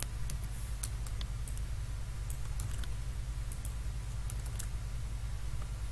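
Computer keyboard keys being pressed in irregular, scattered clicks, over a steady low electrical hum.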